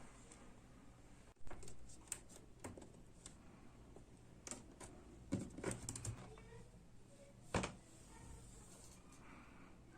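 Scattered light clicks and taps of small objects being handled and set down on a desk, about eight in all, the sharpest near the middle and about three quarters of the way in, over a faint steady hum.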